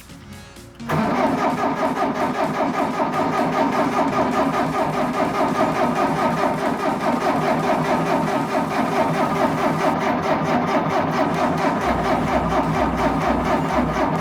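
A forklift's engine catches about a second in and then runs at a steady idle, with a low thudding added near the end.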